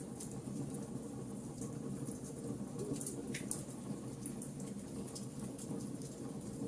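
Wood fire burning in a fireplace: a steady low rush of the flames with scattered sharp crackles and pops.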